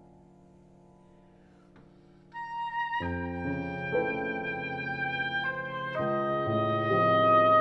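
Oboe, bassoon and piano trio playing contemporary classical chamber music. It starts with soft held notes, then grows suddenly louder about two seconds in as the oboe enters, with the bassoon's low notes and piano chords joining a moment later.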